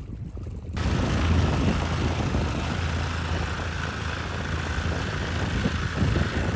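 A motorboat's engine running with a steady low drone under a loud rush of wind and water, which cuts in abruptly about a second in.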